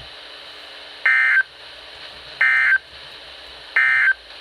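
Emergency Alert System end-of-message data tones from NOAA Weather Radio station KEC83: three short warbling digital bursts, each about a third of a second long and about 1.3 s apart, over steady radio hiss. They mark the close of the special marine warning.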